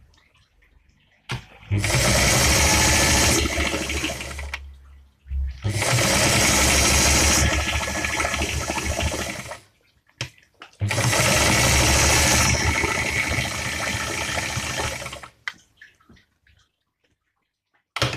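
Singer 319K zigzag sewing machine stitching in three runs of a few seconds each. Each run has the needle going up and down in a fast, even rhythm over a hissing motor whir, with short stops between runs.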